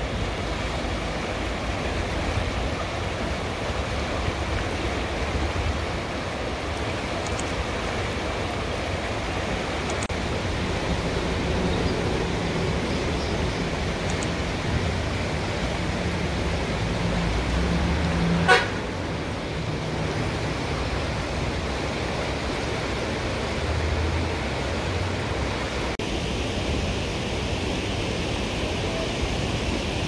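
Steady rushing of a fast, rocky mountain river mixed with road traffic noise. A heavier vehicle engine swells from about ten to nineteen seconds in, with a single sharp click near the middle.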